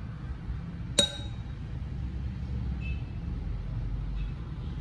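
A single sharp, ringing glass clink about a second in, as a cup being shaken to empty out mashed berries knocks against a drinking glass, over a steady low rumble.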